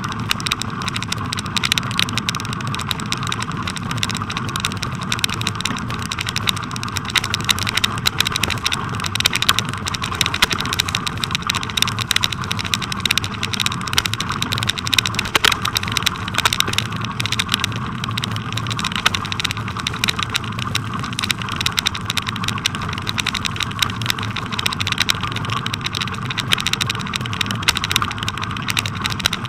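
Bicycle ride on a packed-snow road, heard through a bike-mounted camera: steady tyre and wind noise with a constant dense clicking and rattling, the jolts of a camera that is not fixed firmly.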